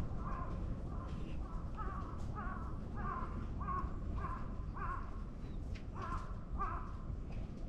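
Crow cawing over and over, a run of short calls about two a second with a brief pause near the end.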